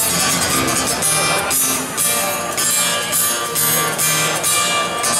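Live Sardinian ballo tondo dance music, with an acoustic guitar strummed to a steady beat through a stage sound system.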